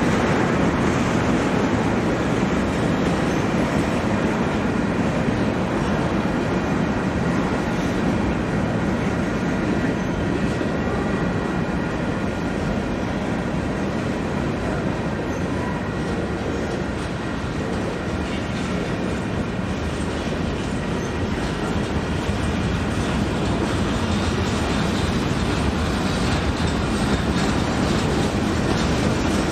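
Union Pacific freight train rolling past, its cars making a steady, loud rolling noise with faint high tones over it.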